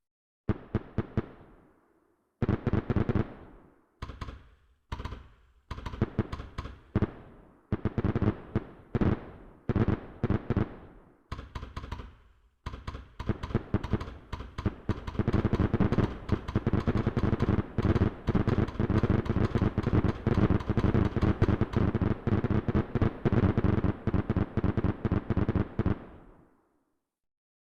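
Fireworks going off: clusters of rapid bangs and crackles with short gaps between, building about halfway through into a dense, unbroken barrage that stops suddenly shortly before the end.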